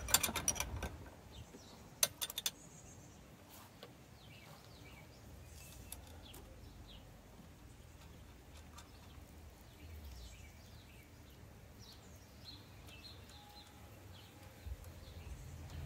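A quick run of small metallic clicks from a hand ratchet near the start and a few more about two seconds in, then faint birds chirping in the background.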